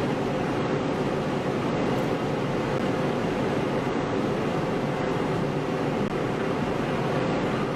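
Steady background noise: an even hiss with a faint hum, and no distinct events.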